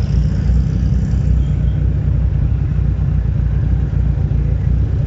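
Steady low engine rumble from a line of air-cooled Volkswagen Type 2 buses and vans driving slowly past in convoy.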